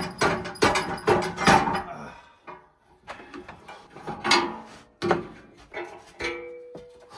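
Plastic rear body of a Husqvarna Rider 13 riding mower being lifted off the frame: a run of clattering knocks and rattles, then a few single knocks, and a short squeak near the end.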